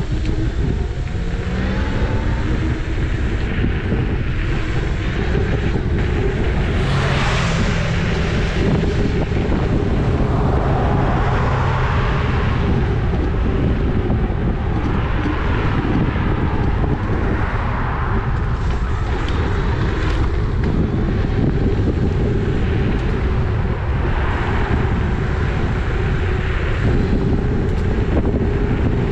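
Wind buffeting the microphone while riding a Dualtron electric scooter, over a steady whine from its hub motors. The whine climbs in pitch over the first couple of seconds as the scooter speeds up.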